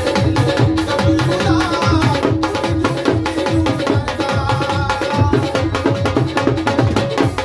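Music for a Punjabi duet song: a fast tabla-style hand-drum rhythm under a held melodic line, played steadily.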